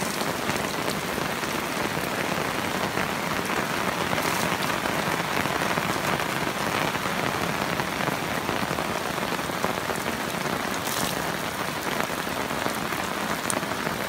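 Heavy thunderstorm rain falling steadily, a dense hiss of drops with a few louder single hits.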